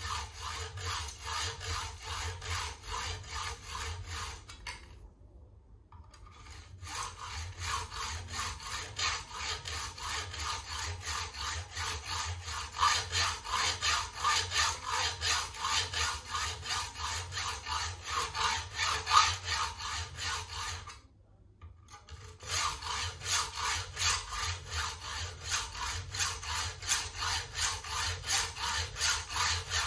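Hand hacksaw cutting through a workpiece clamped in a bench vise, with steady back-and-forth strokes, two or three a second. The sawing stops briefly twice, about five seconds in and again about twenty-one seconds in.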